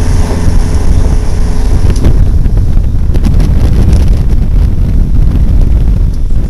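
Heavy wind buffeting the microphone aboard a sailboat under way, a loud, steady low rumble.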